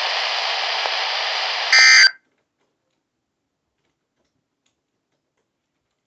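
Weather radio speaker hissing with static after the broadcast voice stops, then, just under two seconds in, a brief loud screech of SAME digital data tones, the end-of-message burst, after which the radio mutes and the sound cuts off.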